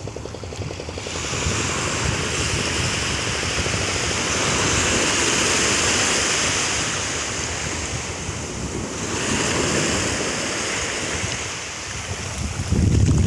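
Small waves washing in over a sandy beach, the surf hiss swelling and falling back twice, with a low rumble of wind on the microphone near the end.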